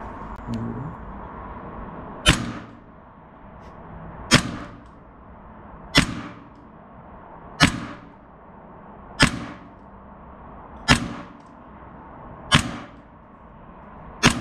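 WE MP7 gas blowback airsoft SMG fired single shots through a chronograph for a muzzle-velocity test: eight sharp shots with the snap of the bolt cycling, spaced about every second and a half to two seconds.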